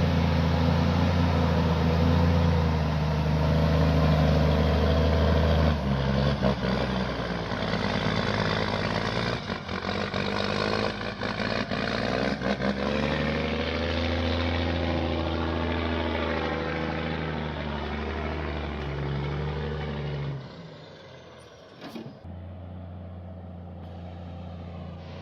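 Heavy truck engine running under load, its pitch rising and falling, then dropping to a quieter run about twenty seconds in, with a single click shortly after.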